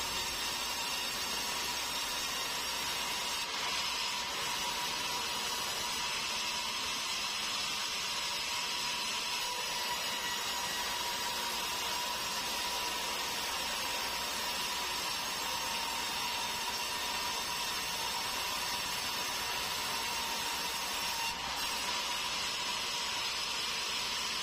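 Large sawmill band saw ripping a squared beam of meranti bukit hardwood: a steady hiss with a thin constant tone that holds without a break.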